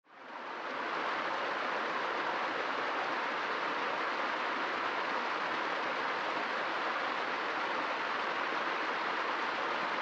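A small stream running steadily down a rocky cascade, a constant rush of water that fades in over the first second.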